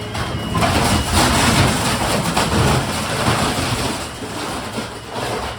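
Garbage truck at work: a loud rushing, crashing rumble, like a load of trash being dumped and ground in the hopper, lasting about four seconds over the truck's steady engine hum.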